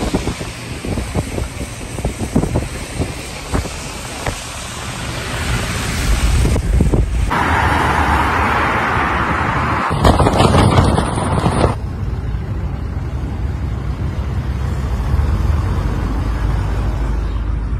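Wind on the microphone and a vehicle driving through slush and floodwater, with a rough crackling over the first seven seconds. Abrupt cuts then bring a steady hiss, a brief louder burst, and finally a steady low vehicle rumble.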